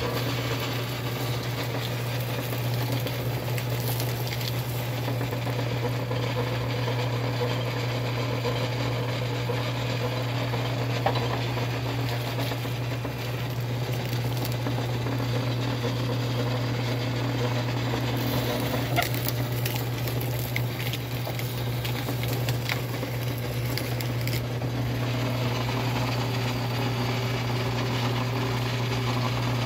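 Small cast-iron sugarcane mill, converted from hand crank to motor drive through a chain and sprocket, running steadily with a low motor hum. Its gears and chain rattle as cane stalks are fed between the rollers and crushed, with a few sharp cracks.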